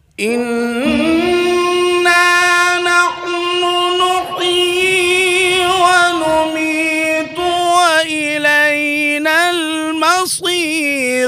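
A man reciting the Quran in a melodic tarannum style. He draws out one long held note for about six seconds, then moves into shorter wavering, ornamented phrases.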